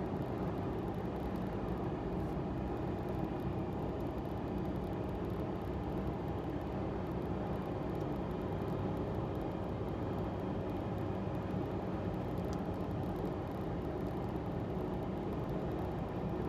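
Inside the cab of a Subaru Sambar kei vehicle cruising on an expressway: steady engine and road noise, a low, even hum that does not change.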